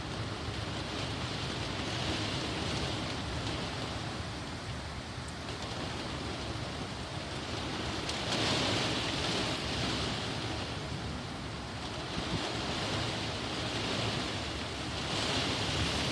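Heavy rain pouring in a strong wind, a steady rush that swells with gusts several times.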